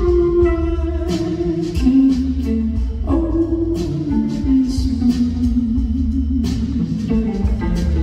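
Live band music: a guitar playing held melody notes over bass guitar and drums, with a drum stroke every second or so.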